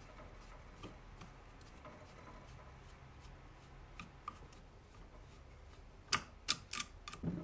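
Faint ticks and scrapes of a ground-down screwdriver turning triangular-headed screws out of a plastic AIO pump housing. A few sharper clicks come near the end.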